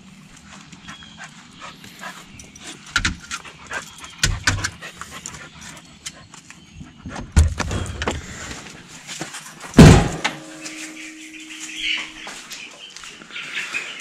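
Footsteps and small clicks and knocks, then a doorknob turned and a wooden exterior door pushed open with a loud knock about ten seconds in.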